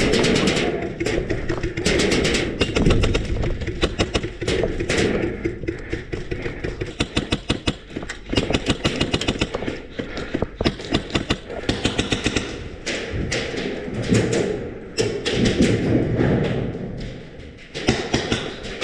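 Airsoft guns firing in rapid bursts: runs of fast clicks, one after another, that start and stop again and again.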